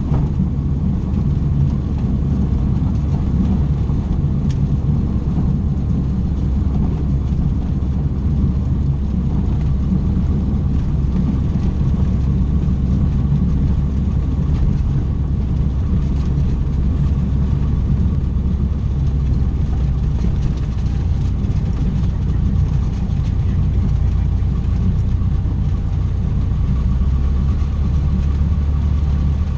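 Cessna 150's Continental O-200 four-cylinder engine and propeller running steadily, a low even drone with a slight shift in pitch near the end.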